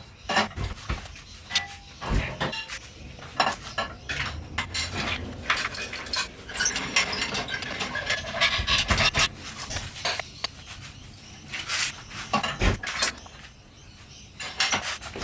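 Irregular metal clanks, clinks and knocks of an engine being lowered into place on an engine crane, some sharp and loud, others light rattles.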